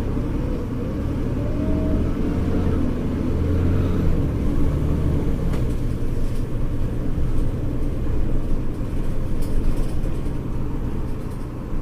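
Diesel engine of a Mercedes-Benz O-500U city bus with a ZF Ecomat automatic transmission, running under way. Its note shifts about four seconds in, and a few rattles sound later on.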